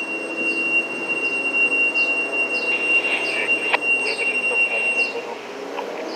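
A steady high-pitched whine that stops abruptly near the end, over light background noise, with a single sharp click partway through.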